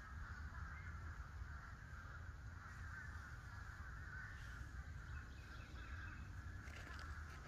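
Faint outdoor background: a steady high hiss with a low rumble underneath, and no distinct event.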